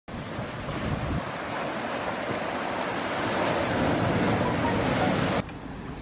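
Sea surf washing and foaming through the gaps between shore rocks, a steady loud rush that cuts off abruptly about five seconds in, giving way to a much quieter background.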